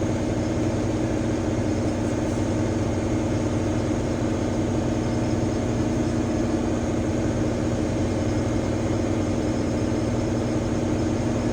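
Steady hum of a CNC milling machine running, with several constant tones and no change in pitch or level.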